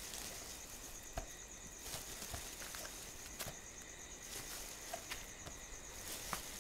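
Crickets trilling steadily in a high, pulsing band, with scattered faint clicks and taps.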